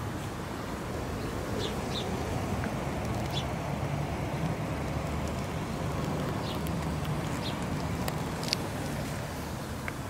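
Steady low vehicle rumble, with a few short high chirps scattered through it.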